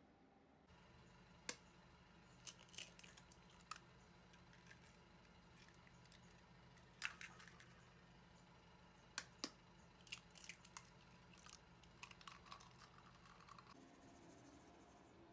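Light kitchen handling sounds: scattered sharp clicks and taps, some in quick little clusters, over a faint steady hum.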